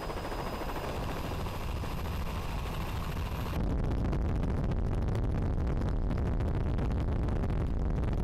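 Helicopter noise heard from aboard the aircraft: a steady engine and rotor din. About three and a half seconds in, it cuts to a louder, deeper rumble with a rapid flutter.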